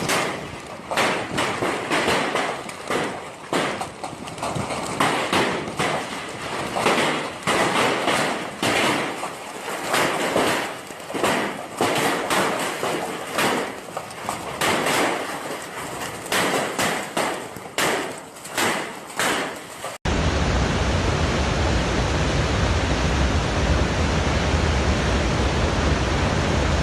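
Irregular rapid knocking and clattering for about twenty seconds, then after a sudden cut the steady roar of fast-flowing floodwater.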